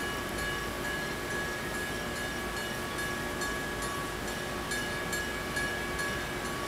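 Small diesel switcher locomotive rolling slowly with its bell clanging in a steady repeated rhythm over the low run of the engine.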